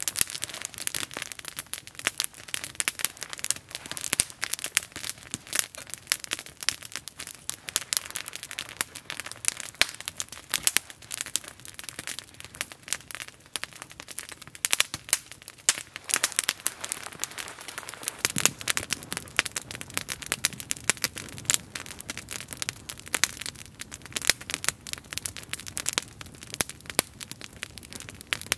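Small wood campfire crackling and popping, a dense irregular run of sharp snaps. From about two-thirds of the way in, a low steady rush joins the crackle.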